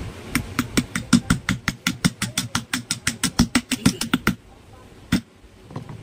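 Rapid metal-on-metal taps, about five a second for some four seconds, then a single tap after a short pause: a steel tool being knocked down onto a ball bearing to seat it in a ceiling fan's cast end cover.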